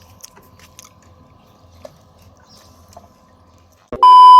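Quiet low-level handling sounds with a few faint clicks. About four seconds in, a loud, steady electronic beep tone cuts in abruptly.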